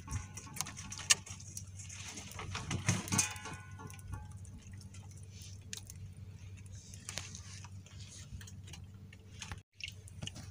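Scattered small clicks and taps from a fishing hand line and hooks being handled on an outrigger boat, over a steady low hum.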